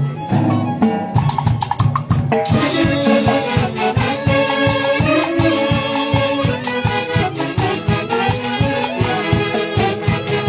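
Band music for dancing: a lighter melodic passage, then about two and a half seconds in the full band enters with wind instruments and a steady drum beat.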